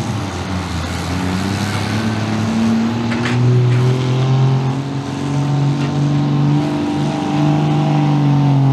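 2001 Dodge Ram 2500's turbocharged Cummins diesel held at full throttle, dragging a 40,000-pound weighted pulling sled through dirt. The engine note stays loud and high, wavering only slightly in pitch as the truck works under heavy load.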